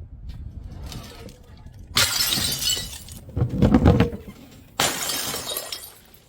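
Paint-filled balloons bursting and splattering: a loud crashing burst about two seconds in, a heavier low splash soon after, and a second burst near the five-second mark that dies away over about a second.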